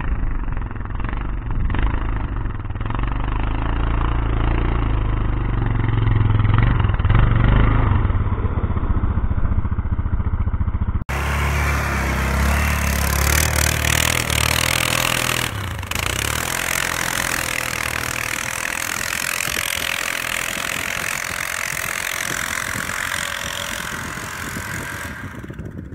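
Yamaha Grizzly 660 quad's single-cylinder engine revving under load as it churns through deep snow. About a third of the way in the sound cuts abruptly to a closer recording with a loud hiss over the engine, which rises in pitch and then falls back.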